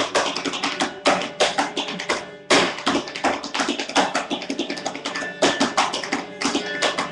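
Tap dancing: a fast, uneven run of sharp shoe taps on the floor, breaking off briefly about two and a half seconds in and coming back with a loud stamp.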